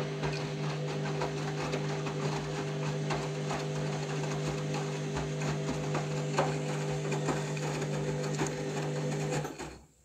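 Candy Grand'O Vita 7 kg washing machine running a rinse: a steady motor hum with water sloshing and clicking in the drum. The motor cuts out sharply about nine and a half seconds in.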